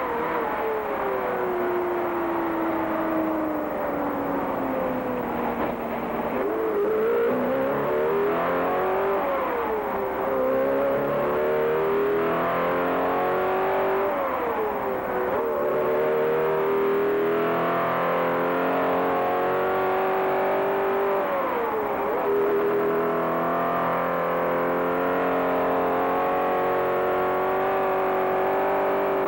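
Ford 427 V8 racing engine running on a dynamometer under an automatic Le Mans lap simulation. The engine speed falls for the first several seconds, then climbs, dipping sharply and recovering three times as gears are changed, and holds steady near the end.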